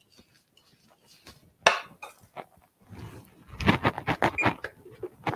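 Kitchen clatter: a sharp knock, then about two seconds in a busy run of knocks and clinks of kitchen things being handled.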